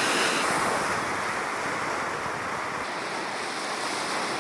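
Ocean surf: waves breaking and washing in as a steady rush of noise.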